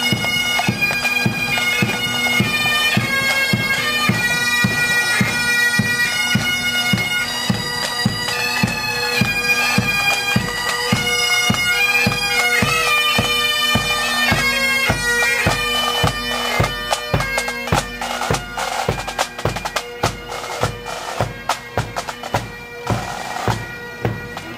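Military pipe band of bagpipes and drums playing a march: steady pipe drones under the chanter melody, with drums keeping a steady marching beat. In the last several seconds the pipes fade and the drumbeat carries on alone.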